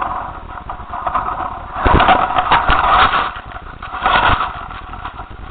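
Strong wind rushing and buffeting over a camera microphone carried on a flying kite, swelling in two gusts about two and four seconds in, with short thumps of the buffeting.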